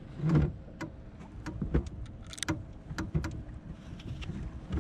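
Irregular clicks and knocks from gear and feet on a fishing boat's deck, over a low rumble.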